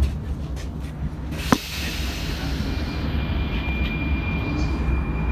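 Prague 81-71M metro train pulling out of the station: a heavy thud right at the start as the doors shut, a sharp click about a second and a half in, then a low rumble, joined by a steady high whine from about three seconds in as it gets under way.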